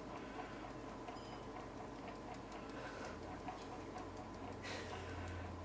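Small mesh strainer tapped lightly with a spoon to sift coffee grounds: faint, quick ticking, with a short soft hiss of falling grounds near the end.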